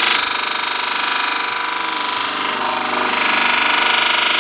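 A dental model trimmer runs, its abrasive wheel grinding the edge of a gypsum stone cast of a dental arch. The motor hum stays steady under harsh grinding noise, which eases a little in the middle and then picks up again.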